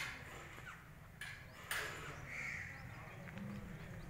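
A bird calling once about midway, with two sharp knocks a little before it, over a low steady hum.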